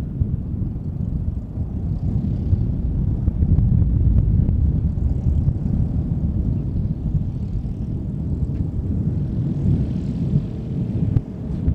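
Cessna 172P Skyhawk's four-cylinder Lycoming piston engine and propeller running at low taxi power as the plane passes, loudest a few seconds in and easing off as it moves away.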